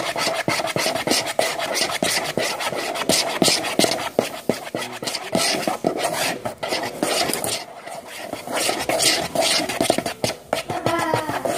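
A slime mixture being stirred in a bowl: a utensil scraping and clicking against the bowl in quick, irregular strokes.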